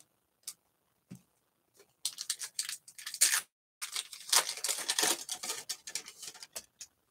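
Foil wrapper of a baseball card pack being torn open and crinkled. A few faint ticks come first, then two stretches of sharp crackling starting about two seconds in, with a short break between them.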